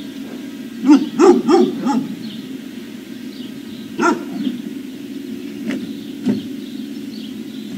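Dogs barking: a quick run of four barks about a second in, then scattered single barks, over a steady low hum.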